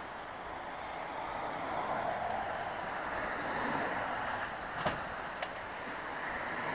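Steady outdoor background noise, a constant hiss-like wash with no clear source, broken by two sharp clicks about half a second apart roughly five seconds in.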